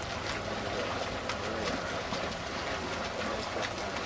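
Lake water splashing irregularly under a swimmer's front-crawl arm strokes, over a steady low outdoor rumble.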